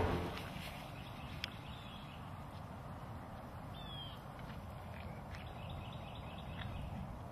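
Faint outdoor background with a low steady rumble and a few high bird chirps, one short falling call about four seconds in and a quick run of them later. Drum-heavy music fades out at the very start.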